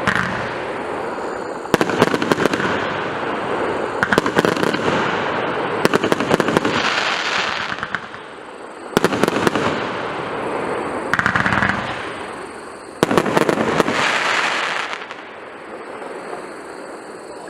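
A 1.2-inch, 180-shot consumer fireworks battery firing volleys of rapid shots every two to four seconds, each volley followed by a hiss that dies away. The last volley comes about 13 seconds in, after which the sound fades out.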